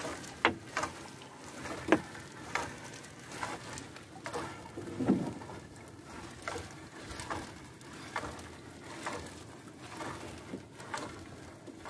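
A fishing net being hauled aboard a small boat: irregular wet splashes, drips and knocks as the net comes over the side, with a duller thump about five seconds in.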